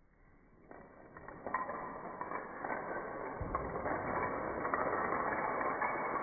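Lots of small dominoes clattering and sliding against each other and the floor as they are raked together by hand; the clatter starts about a second in and grows into a steady, dense rattle.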